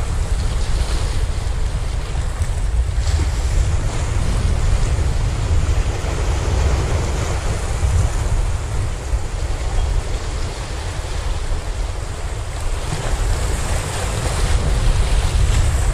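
Small waves washing and splashing against shoreline rocks, with heavy wind rumbling on the microphone; the splashing grows a little brighter near the end.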